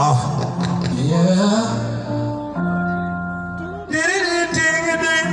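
Live keyboard playing held chords, with a singing voice sliding in pitch over it and then holding a wavering sung note near the end.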